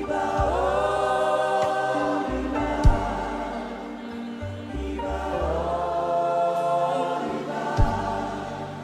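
Slow gospel worship music: voices hold long sustained chords over low bass notes, with a short sharp hit about three seconds in and another near the end.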